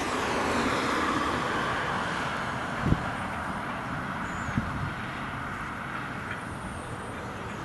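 Miniature railway train running past, a steady rushing noise that slowly fades, with two sharp knocks about three and four and a half seconds in.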